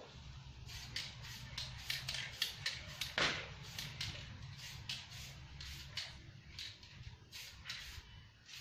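Short, irregular hisses of an aerosol spray-paint can sprayed in quick bursts over a steady low hum. One louder sound about three seconds in slides down sharply in pitch.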